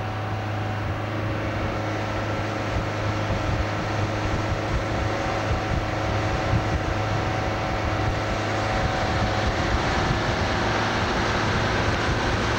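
Boat's diesel engine running steadily under way: a constant engine hum with a rushing wash of water, getting slightly louder toward the end.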